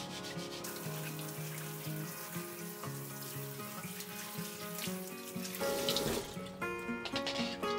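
Kitchen tap running into a stainless steel sink, water splashing over hands and a cucumber being rinsed, with a louder splash around six seconds in. Background music plays underneath.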